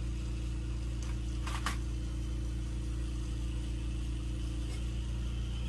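Steady low hum of a lampworking bench: the torch flame burning and the electric mandrel spinner turning the mandrel as glass is wound on. A short noise stands out about one and a half seconds in.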